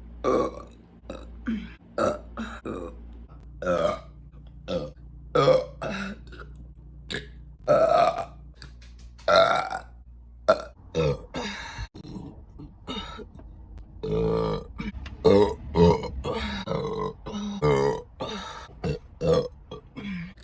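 A person burping over and over: a rapid string of separate short burps, about one or two a second, with some longer, deeper burps about two-thirds of the way through.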